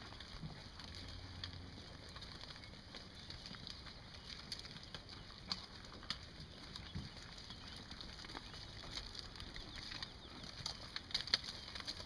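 Dairy cows grazing kale, tearing and crunching the stalks, heard as scattered crackles and clicks over a faint steady hiss. A short low hum comes about a second in.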